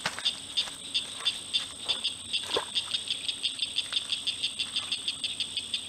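Rhythmic outdoor chirping from a small calling animal, about three to four high chirps a second and slightly quicker toward the end, over a steady high-pitched hum.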